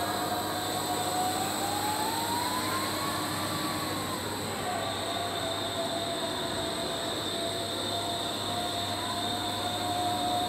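Paddle-ship engine and paddle wheel turning over steadily, driven by a roller chain from a gearbox: a steady mechanical running noise with a constant hum. A thin whine rises in pitch about two seconds in and drops back by the middle.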